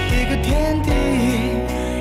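Closing theme song: a sung vocal line over instrumental backing with a steady bass.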